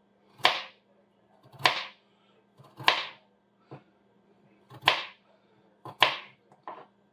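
Kitchen knife working a potato, scraping or cutting strokes about once a second, each a short sharp scratch that fades quickly.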